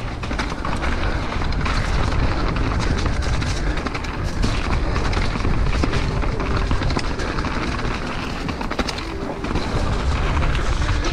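Downhill mountain bike descending a gravel-and-dirt trail, heard from a helmet-mounted camera: a steady rush of wind on the microphone and tyre noise over loose ground, with frequent rattles and knocks from the bike.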